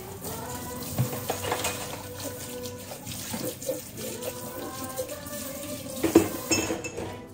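Kitchen tap running into a stainless steel sink while a cup is rinsed, with a couple of sharp knocks; the loudest comes about six seconds in.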